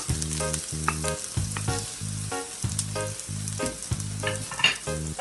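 Chopped onion, garlic and ginger sizzling and frying in hot cooking oil while being stirred, with small crackles. A background music track with a steady, repeating bass line plays under it.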